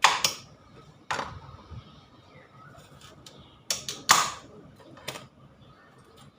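Kitchen clatter: about six sharp knocks and clinks of utensils or cookware, irregularly spaced. The loudest come right at the start and about four seconds in.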